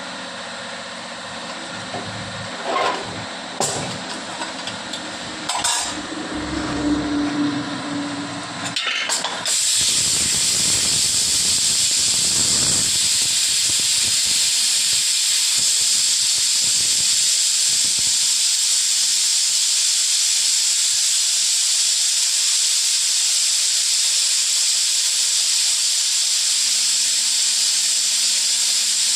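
A few knocks of utensils, then about nine seconds in a loud, steady hiss from cooking on the stove starts suddenly and holds at an even level.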